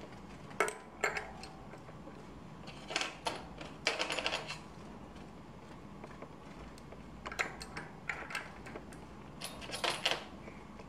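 Shimano 9-speed cassette sprockets clinking metal on metal as they are slid onto the hub, in several short groups of sharp clicks.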